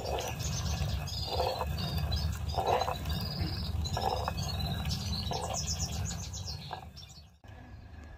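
Hand-turned stone quern grinding grain: a steady low rumble of stone on stone with a scraping swell about every 1.3 seconds. Birds chirp over it, and it cuts off sharply near the end.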